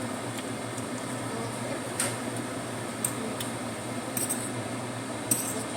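A few scattered clinks of utensils against pots or dishes, over a steady background hum.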